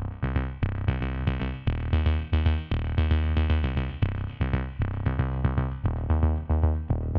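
Electronic background music: synthesizer notes over a drum-machine beat with a strong bass line.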